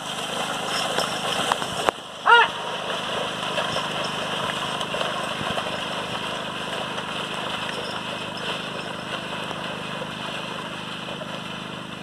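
A steady, motor-like drone with a low hum beneath it, and about two seconds in one short, loud rising-and-falling call from the man driving the bulls.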